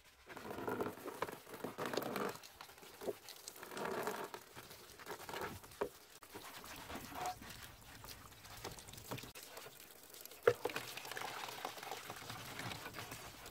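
A sponge scrubbing a rusty metal scale part in a plastic tub of soapy water: rough rubbing strokes in bursts with swishing water. A few sharp knocks come through, the loudest about ten and a half seconds in.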